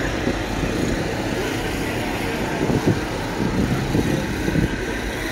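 Steady outdoor background noise with a low rumble and faint, indistinct voices of people nearby.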